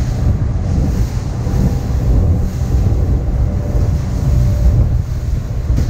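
Heavy wind rumble on the microphone over rushing water, from a boat running at speed on the open sea.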